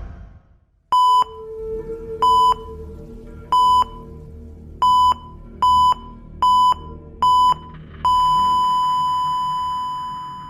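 Seven short electronic beeps at one pitch, coming closer together toward the end, then one long held beep that slowly fades, over a faint low rumble.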